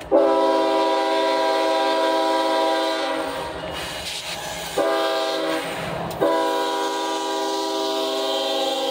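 Iowa Interstate diesel locomotive sounding its air horn, a chord of several notes, as it approaches and passes close by: a long blast, a shorter one about five seconds in, then a third held on through the end. A low rumble of the passing locomotive fills the gaps between blasts.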